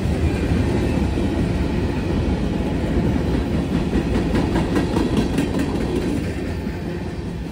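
CSX manifest freight train rolling past, its cars' wheels clattering over the rail joints in a steady rumble, with a few sharper clicks about halfway through.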